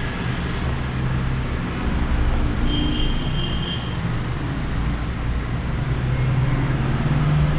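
Steady low rumble of background noise, with a faint high tone lasting about a second around three seconds in.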